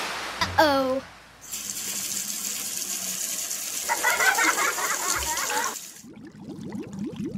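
Gushing water sound effect, like a running tap filling a space, a steady rushing hiss that eases off about six seconds in into quieter bubbling blips.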